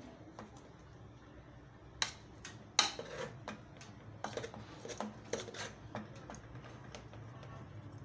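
Metal spoon scraping and clinking against an aluminium cooking pot while stirring fried rice, with a few sharp knocks, the loudest about two and three seconds in.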